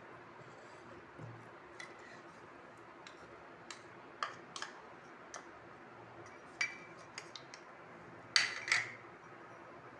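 Light, scattered taps and clicks of a spoon and a plastic container against a terracotta bowl as dry powders are added and stirred, with a louder pair of knocks near the end.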